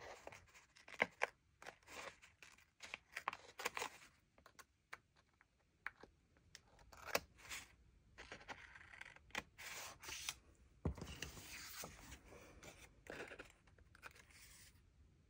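Scissors trimming the overhanging edges of stickers off a paper planner page: an irregular series of short snips, with paper scraping and handling in between.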